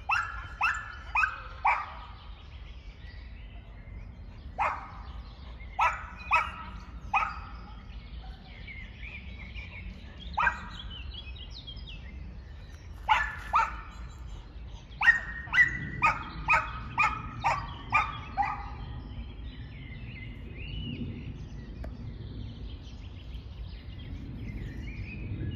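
A dog barking repeatedly in bursts with pauses between them, ending in a quick run of about eight barks. Birds chirp faintly in the gaps.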